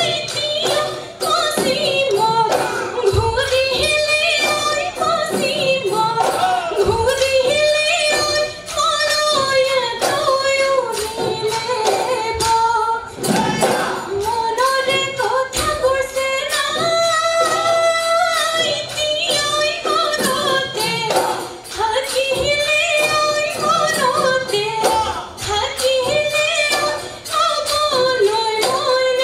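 A group of women singing an Assamese Bihu song in unison into microphones, accompanied by dhol drums beating a fast, steady rhythm.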